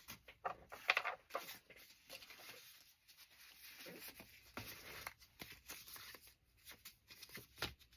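Stiff paper cards being handled and sorted: light rustling and scattered soft taps as they are shuffled and set down, with a couple of louder taps about a second in and near the end.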